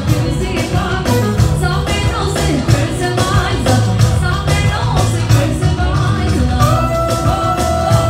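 Live Albanian çiftetelli dance music played through a PA: a woman singing into a microphone over a band with a steady dance beat and heavy bass. A long held note comes in near the end.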